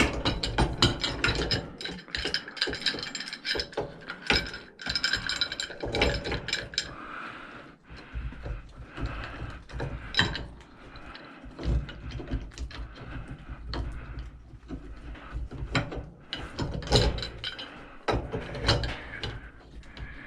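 Pipe wrench clicking and clanking on a chunk of brass scrap as a fitting is wrenched off it: a long run of sharp metallic clicks and knocks with ringing, thickest in the first seven seconds and again near the end.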